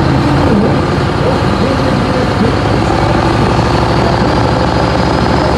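MTU 2000-series V8 common-rail diesel in a Peterbilt pulling truck, running steadily and loudly with an even, rhythmic firing beat, controlled by a standalone aftermarket diesel ECU.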